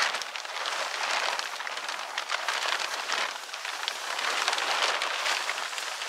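Large tarp rustling and crinkling as it is unfolded, pulled taut and lifted over a frame, in uneven swells of crackly noise.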